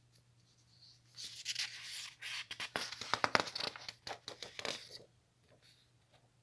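Sheets of paper rustling and crackling as they are handled and swapped, starting about a second in and stopping about a second before the end.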